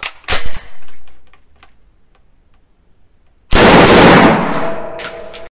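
A few metallic clicks and a short slide from the FN SAFN 49 rifle's action as it is handled. About three and a half seconds in, a single .30-06 rifle shot, echoing in the indoor range, with ringing as it dies away before it cuts off suddenly.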